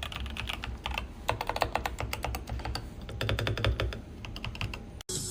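Typing on a Tecware Phantom+ mechanical keyboard with pre-lubed switches: rapid key clacks in quick runs with short pauses, cutting off abruptly about five seconds in.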